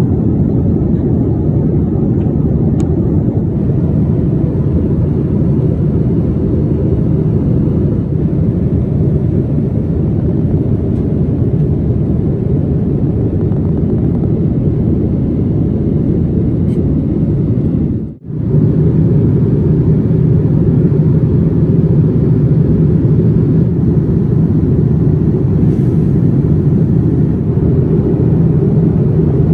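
Steady low rumble of airflow and engine noise inside the cabin of a Boeing 787-9 airliner in cruise. It cuts out for a moment about 18 seconds in, then carries on.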